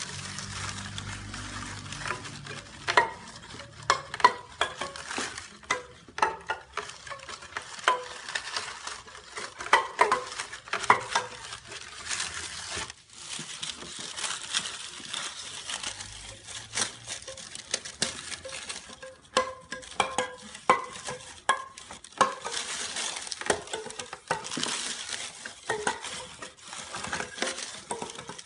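Kitchen cooking sounds: a steady sizzle of food frying, with utensils stirring and clinking against pots and dishes in frequent sharp ringing clicks.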